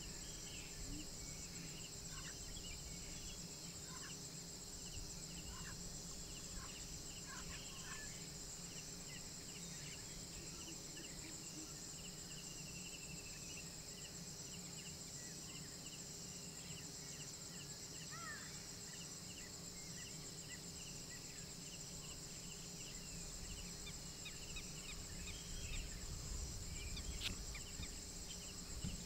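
Night forest ambience: a steady, high-pitched chorus of crickets and other insects, with many short chirping calls scattered through it and a low rumble that grows near the end.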